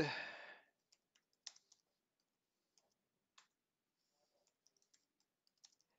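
Faint computer keyboard keystrokes: a few scattered clicks of keys being typed, spread unevenly over several seconds.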